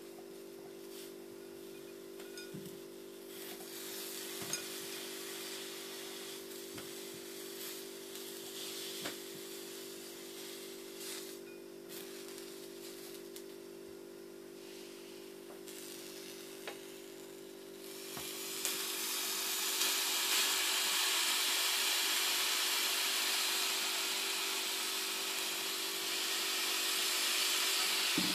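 Grapes dropped onto the plates of an electric waffle iron with a few faint light taps. About 18 seconds in, a thump is followed by a loud, steady hiss: grapes sizzling and steaming, crushed between the closed hot plates.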